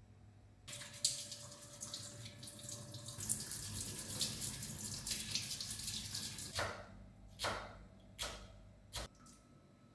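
Kitchen tap running, with water splashing over half a red cabbage in a stainless steel sink for about six seconds. Then a chef's knife cuts through red cabbage onto a wooden chopping board four times, about one cut every 0.8 seconds.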